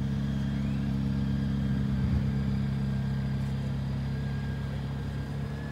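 McLaren Speedtail's twin-turbo V8 engine idling steadily at low revs.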